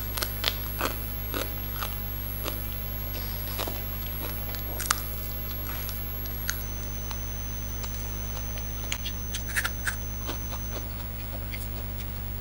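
Close-up eating sounds: chewing and biting into crispy fried fish whose bones are fried crisp, giving scattered sharp crunches and clicks with a quick run of them about ten seconds in. A steady low hum runs underneath.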